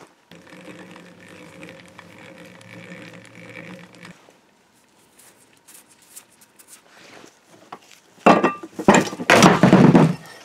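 A steady hum for about four seconds, then about two seconds of loud rustling and knocking as gloved hands handle a cast-iron part.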